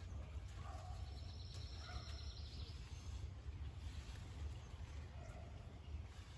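Faint outdoor background: a steady low rumble, with a faint high-pitched trill about a second in that lasts just over a second.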